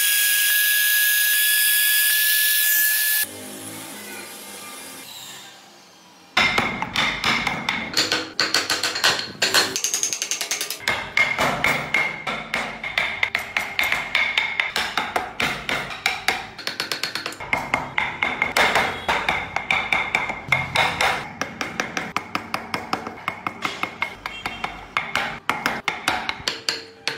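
Trim router cutting small wooden pieces with a high whine for about three seconds, then dying away. From about six seconds in, a long run of sharp taps on a wood-carving chisel, several a second, as it cuts into the wood.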